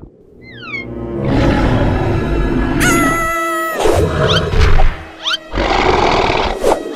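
Edited cartoon sound effects over music: a short falling whistle, then loud animal-like roaring, broken by a held tone and a few quick rising squeaks.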